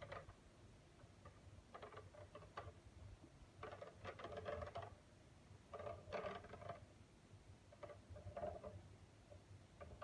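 A round turntable base being turned by hand under a glass terrarium, giving faint clicking rattles in four short bursts about two seconds apart.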